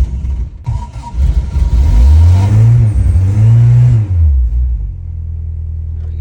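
1970 VW Bus air-cooled flat-four engine running roughly just after a cold start in freezing weather, revved up twice and then settling to a steady idle.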